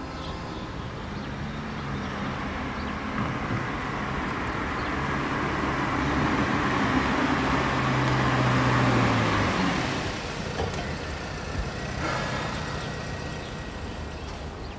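White Range Rover Evoque SUV driving up: engine and tyre noise building steadily to its loudest about nine seconds in, with a low engine hum, then easing off as it slows.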